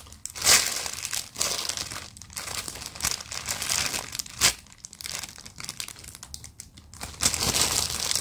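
Clear plastic packaging bag crinkling as a large foam cake squishy is squeezed inside it, in irregular bursts of rustling with several louder crackles.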